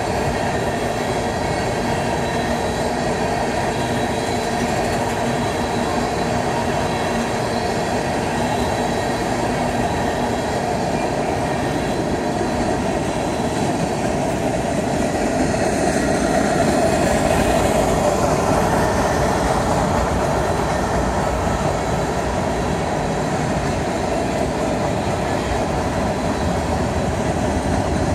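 Freight train's tank cars rolling past: a steady rumble and rattle of steel wheels on the rails, swelling for a few seconds midway.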